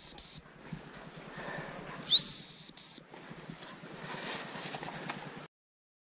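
Gundog whistle blown to the working spaniel: the end of one high, steady blast at the start, then a longer blast about two seconds in, broken briefly near its end. Faint rustling lies between the blasts, and the sound cuts off suddenly about five and a half seconds in.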